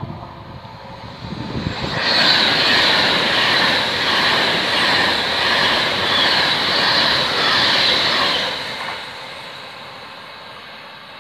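Class 390 Pendolino electric express train passing at speed without stopping: a loud rush of wheels and air builds about two seconds in, holds for about six seconds with a high-pitched whine over it, then fades as the train draws away.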